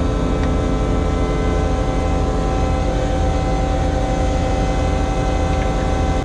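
Liebherr mobile crane's engine running steadily, an even hum with several steady tones over a low pulse, and a light click about half a second in.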